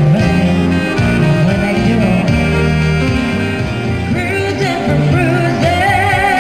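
A woman singing a country-style ballad into a microphone over keyboard accompaniment. About four seconds in she holds a long note with vibrato.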